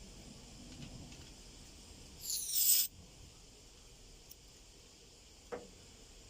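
A short, loud hiss of air-conditioning refrigerant gas being released, lasting under a second, followed a few seconds later by a light click.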